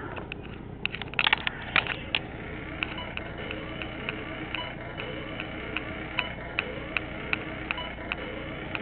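Song playing from a computer's speakers, picked up faintly: a steady beat of short sharp clicks, about two and a half a second, over a low hum. A cluster of louder knocks and clicks comes about a second in.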